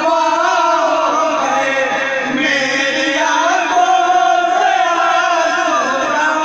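A group of men chanting a devotional Urdu naat in praise of the Prophet in unison over microphones, voices only, with no instruments.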